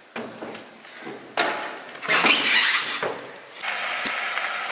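A few sharp knocks and bumps, then a louder scraping, rustling stretch, typical of someone shifting about on a debris-strewn window ledge. About three and a half seconds in, this gives way to a steady background hiss.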